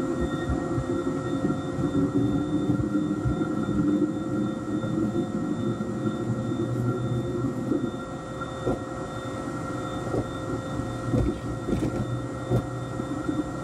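Cabin noise inside a Boeing 787-8 Dreamliner taxiing: a steady rumbling hum with a constant engine whine, and a few light knocks in the second half.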